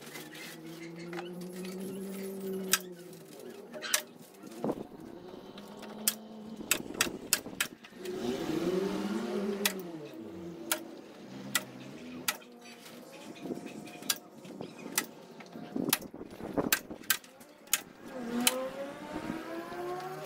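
Sharp knocks and taps at irregular intervals, as a plastic tarp is nailed onto a wooden coop frame. Behind them, a vehicle engine passes three times, rising and falling in pitch.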